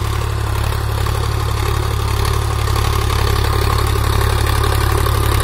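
Sonalika DI 745's 50 HP three-cylinder diesel engine running steadily under load as the tractor pulls a nine-tine cultivator through wet soil. It grows slightly louder as the tractor draws near.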